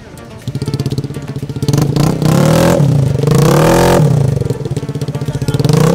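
Honda Scoopy scooter engine running through a loud aftermarket knalpot brong exhaust, settling into a fast pulsing idle about half a second in, then revved up and down in blips.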